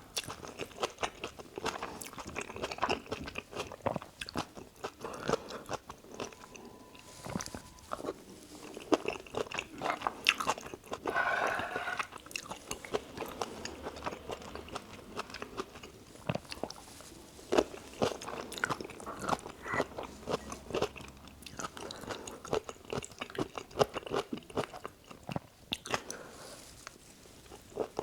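Close-miked chewing and biting of spicy stir-fried chicken and rice, a steady run of small crunches and wet mouth clicks.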